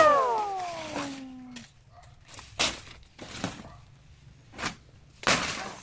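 A person's long drawn-out exclamation, falling in pitch and fading out about a second and a half in, then scattered crackling and rustling of dry banana leaves around a cut banana plant.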